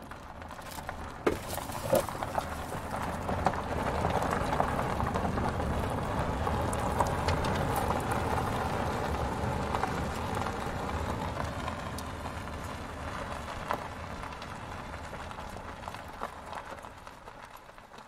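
A plastic toy road roller pushed by hand through sand: a steady gritty scraping and crunching of sand under its wheels and roller, with a few small clicks. It grows louder after the first couple of seconds and fades toward the end.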